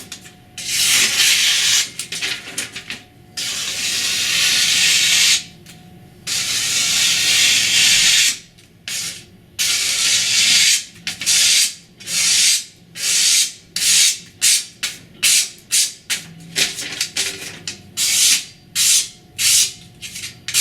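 A freshly sharpened knife slicing through paper: a few long drawn cuts, then a quick run of short slices about two a second. The clean cuts are the sign that no small burrs are left on the edge.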